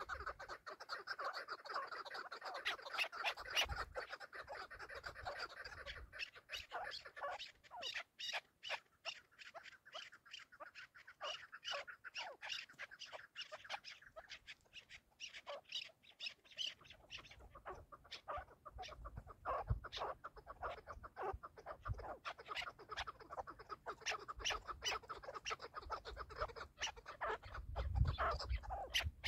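Chukar partridges calling: long runs of short, rapid clucking 'chuk' notes, with a low rumble underneath in the second half.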